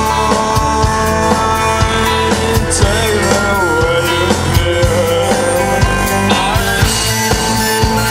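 Rock music with drums, guitar and sustained bending melody lines over a steady beat.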